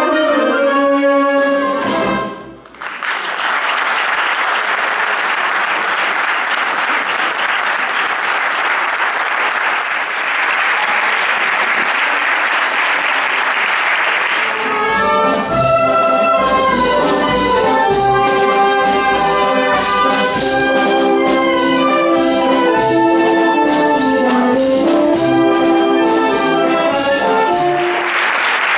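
Wind band of brass and reeds playing, breaking off about two seconds in, followed by audience applause for about twelve seconds. The band then plays again until applause returns near the end.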